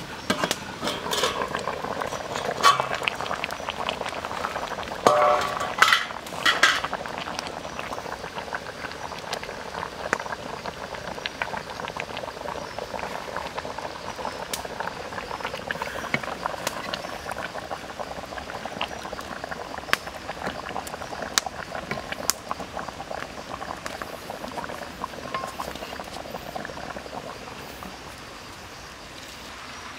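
Squid and octopus in broth boiling hard in a wok, a steady bubbling with a few louder clinks and knocks in the first seven seconds.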